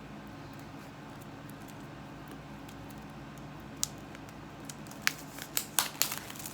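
Cosmetic packaging being handled: a sharp click about four seconds in, then a quick run of clicks and light rustles near the end, over a steady low room hum.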